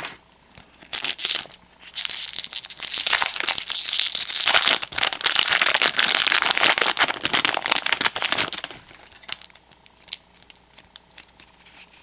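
A baseball card pack's wrapper crinkling as it is torn open and pulled off the cards: a few short crinkles about a second in, then about seven seconds of continuous crinkling that stops near three-quarters of the way through, leaving light clicks of cards being handled.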